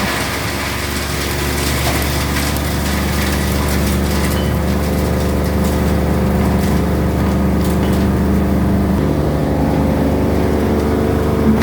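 Coconut husk cocopeat and cocofibre machine running steadily, its drive giving a constant hum, with a slight change in tone about nine seconds in.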